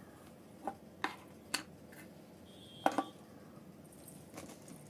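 Small plastic toy kitchen pieces, a toy pot lid among them, being handled and set down on a table: about five light, sharp clicks, the loudest nearly three seconds in.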